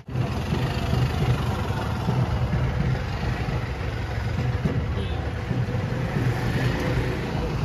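A vehicle engine running steadily under a dense, even rush of noise.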